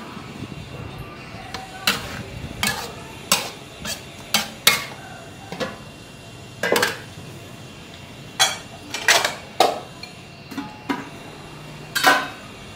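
Metal clattering of a steel wok, its spatula and its steel lid: about a dozen sharp, irregular knocks, each with a short metallic ring.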